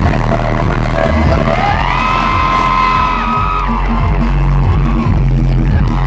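Loud music with a heavy bass beat over a large outdoor concert sound system, with a crowd cheering. A held note rises about a second and a half in and holds for about two seconds.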